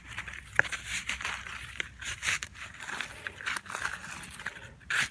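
Digging into the loose soil of a potato hill: irregular rustling and scraping of earth, with a sharp click about half a second in.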